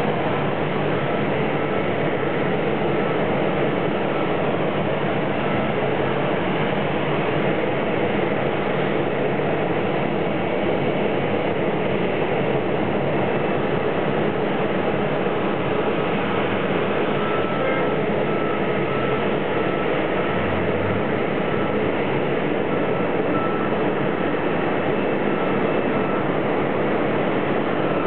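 Boeing 737-800's CFM56-7B jet engines running at idle after pushback: a steady roar with a faint high whine.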